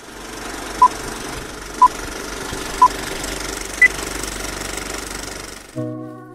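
Film-leader countdown sound effect: a steady film-projector rattle and crackle with a short beep each second, three at one pitch and a fourth, higher one. A brief held chord of tones sounds near the end.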